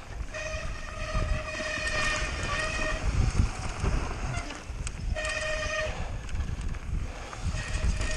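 Mountain bike disc brakes squealing in three stretches: a steady pitched squeal lasting about two and a half seconds, a shorter one under a second long about five seconds in, and another starting near the end. Under it runs a low rumble of the bike riding downhill.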